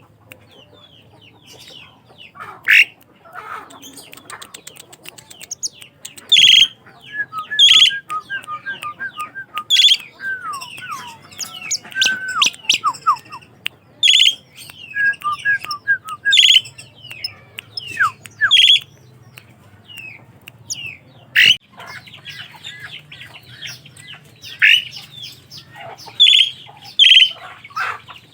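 Asian pied starlings (jalak suren) singing: loud, sharp chirps and whistles every second or two, with quick runs of short whistled notes.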